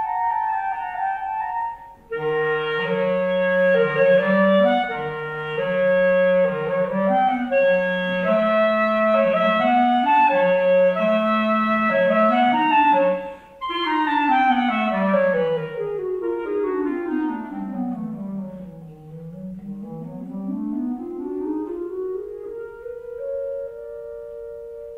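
Two clarinets playing a duet, one in its low register under a busier upper part. There is a short break about two seconds in and another about halfway through. Then long scales sweep down into the low register and climb back up, ending on two long held notes.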